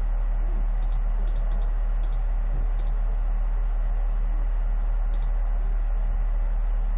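Short, sharp computer clicks, about seven, mostly in the first three seconds and one more about five seconds in, as Go stones are placed one by one on an on-screen board. A steady low electrical hum runs underneath.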